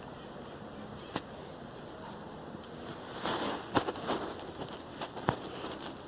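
Wood fire crackling in a small homemade camp stove, with a few sharp pops and a louder stretch of crackling around the middle.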